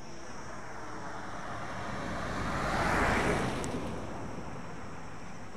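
A vehicle passes by on the road, its noise swelling to a peak about halfway through and then fading away.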